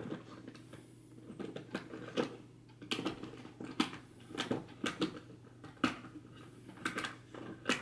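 Irregular light clicks and taps of an eyeshadow compact and makeup brush being handled, over a faint low hum.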